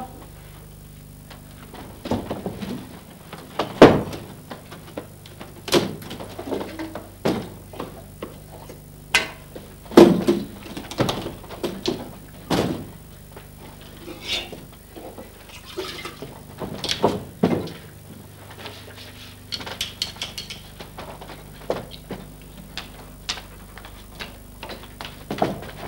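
Irregular knocks, thuds and rattles of wooden stage props being picked up, carried and set down on a stage floor, over a low steady hum.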